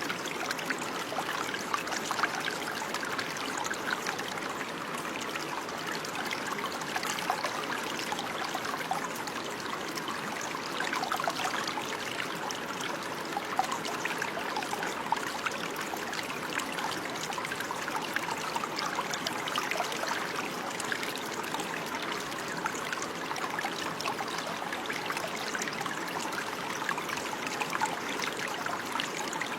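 Running water: a small stream trickling and babbling steadily over stones, with dense small splashes and no change.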